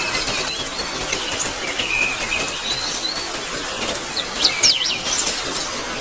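Steady rain with birds chirping over it: short whistled calls, and a quick run of sharp chirps about two-thirds of the way through.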